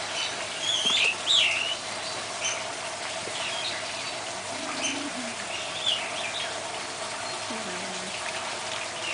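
Birds chirping, with a few quick calls in the first two seconds and scattered short chirps after, over a steady low hum.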